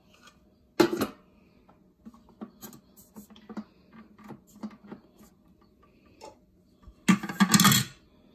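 Thermomix's plastic lid being fitted onto the steel mixing bowl: a sharp knock about a second in, then light clicks and taps as it is seated, and a louder rattling scrape lasting about a second near the end.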